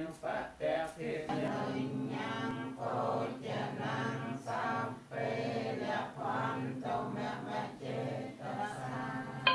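Group of voices chanting a Buddhist recitation in unison, in short even phrases on a near-steady pitch.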